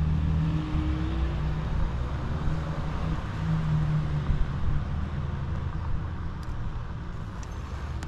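Off-road electric scooter riding slowly along a paved path: a steady low rumble of tyres and wind, with a faint motor whine that rises slightly about a second in.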